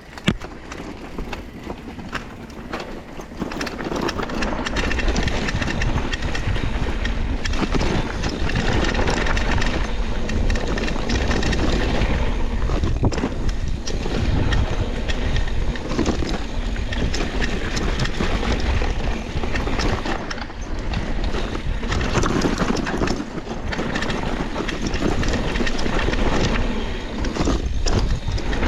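Downhill mountain bike riding down a rough trail: heavy wind buffeting the microphone, with a constant rattle and clatter of the bike over roots and rocks. It builds up over the first few seconds as speed picks up.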